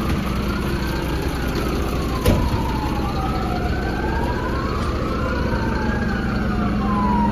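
Two emergency sirens wailing at once, each rising and falling slowly and overlapping, over the steady drone of a fire engine's engine. A single sharp bang sounds about two seconds in.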